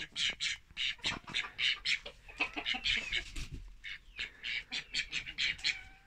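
Domestic ducks quacking in a rapid run of short calls, several a second.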